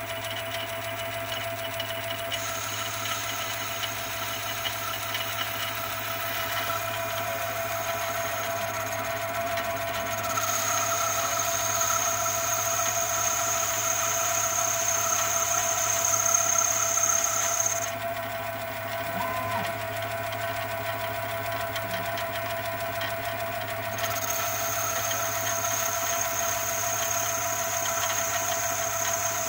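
LMS HiTorque mini lathe, converted to CNC, turning a metal bar: the spindle motor runs with a steady whine as the tool cuts. A higher whine comes in a couple of seconds in, drops out past the middle and returns near the end, and the sound is loudest shortly before it first drops out.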